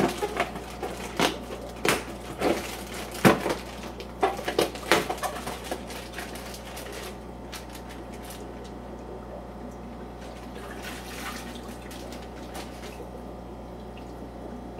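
A plastic fish bag crinkling and rustling as it is opened and handled, with sharp crackles over the first five seconds. Then the bag water trickles and pours into a plastic bucket. A steady low hum runs underneath.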